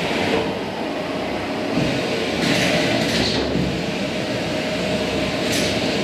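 Vacuum cleaner running steadily, with a hiss that swells and fades a couple of times.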